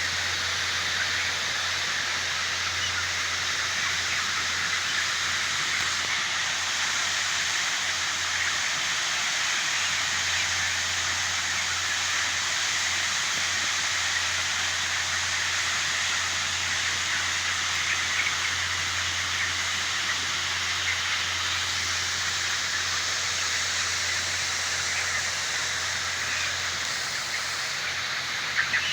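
Steady, dense chatter of a large flock of broiler chickens in a poultry house, blended into a continuous hiss, over a low steady hum.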